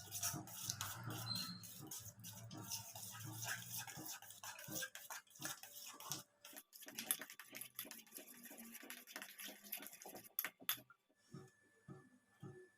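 Faint, irregular clicking and knocking, typical of kitchen utensils and cookware being handled, over a low steady hum; about two-thirds of the way through the hum drops away and an evenly spaced ticking, roughly two to three a second, takes over.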